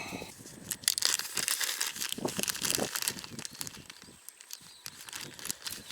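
Crinkling and rustling of plastic packaging being handled, a dense run of quick crackles that thins out about halfway through.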